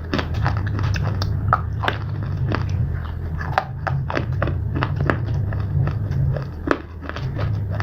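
Close-miked crunching and chewing of hard, brittle pieces of slate, with sharp irregular crunches a few times a second over a steady low hum.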